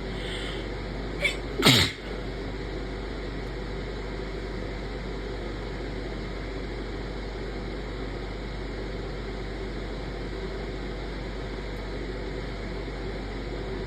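An induced human sneeze: a short catch of breath, then one loud sneeze about a second and a half in, its voice falling in pitch. A steady background hiss and hum runs underneath.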